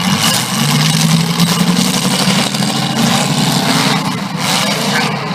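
Engines of several stock V8 demolition derby cars running and revving together, a loud continuous drone.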